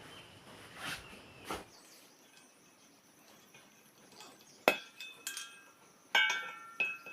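A few sharp metallic clinks, several with a brief ringing tone, about five seconds in and again just after six seconds, as metal parts are knocked together.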